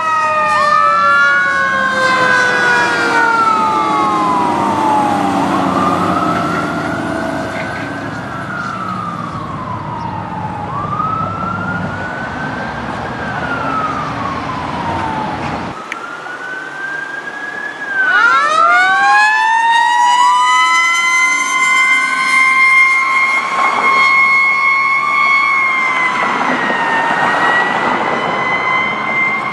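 Fire engine sirens on an emergency run, wailing up and down in slow cycles with several overlapping at first and the trucks' engines underneath. About halfway through the sound cuts off, then a siren winds up quickly and holds a steady high tone that dips now and then.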